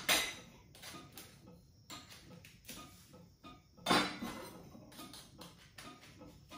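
Metal frame tubes clinking and clattering as they are handled and laid down on a table, with a louder clatter about four seconds in.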